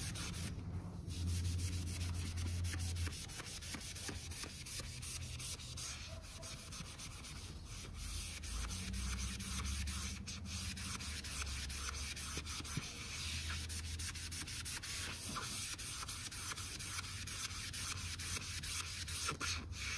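Magic Eraser melamine sponge scrubbing a vinyl boat seat: steady back-and-forth rubbing strokes over a low hum.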